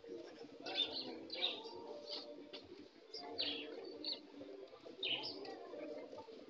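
A flock of caged brown laying hens clucking steadily, with about six short high-pitched calls scattered through.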